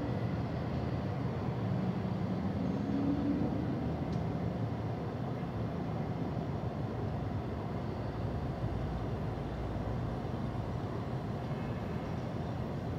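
Steady low rumble of city street traffic, with one engine note rising briefly about two to three seconds in.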